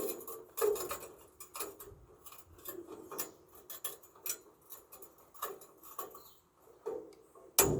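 Light, irregular clicks and taps, several a second, then one loud knock with a short ringing tail near the end.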